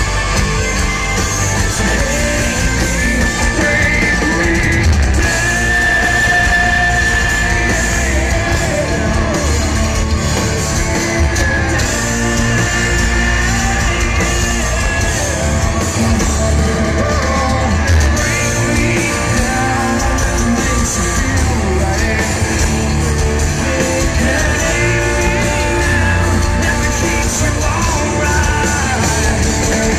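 Rock band playing live and loud, with distorted electric guitars, drums and a sung male lead vocal, recorded from within the crowd.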